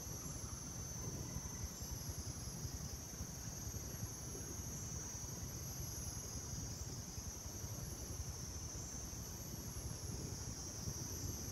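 Steady, high-pitched chorus of insects in two shrill unbroken bands, over a low steady rumble.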